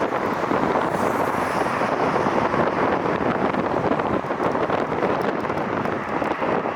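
Strong wind buffeting the microphone: a steady, loud rushing noise.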